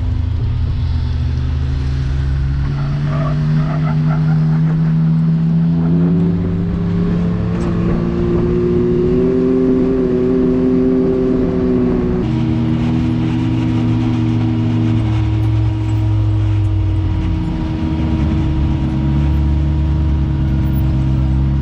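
A motor vehicle's engine running while driving, its pitch rising for several seconds as it accelerates, then holding steady. About halfway through the sound changes abruptly, and the engine note shifts down and up again after that.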